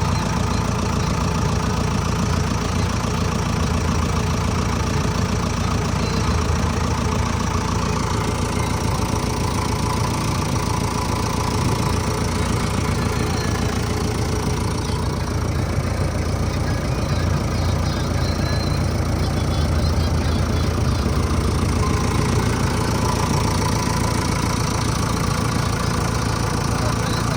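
Diesel engine of heavy earth-moving or farm machinery running steadily at a low, even speed, with little change in pitch.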